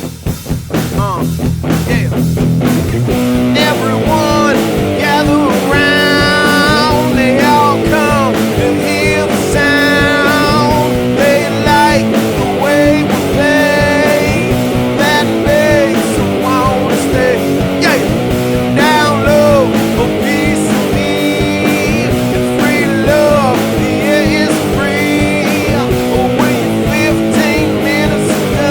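Grunge rock song: electric guitar and drum kit with a sung lead vocal that comes in about three seconds in.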